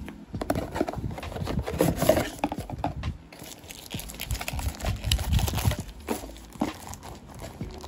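Cardboard box and plastic bag being handled by hand: irregular rustling and crinkling with small knocks as the plastic-wrapped range extender comes out of its box.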